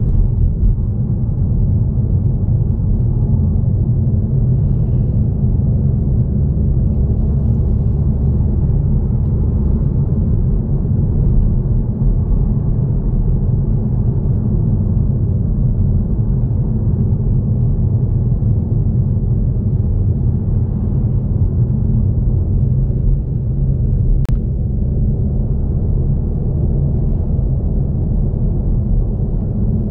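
Toyota GR Supra being driven at a steady pace: a continuous low engine and road rumble, with no revving.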